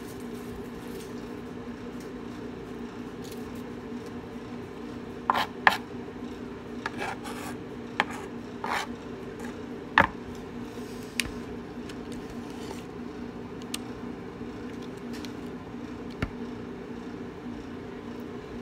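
Chef's knife knocking and scraping on a plastic cutting board about ten times at uneven intervals, the sharpest knocks around the middle, over a steady low hum.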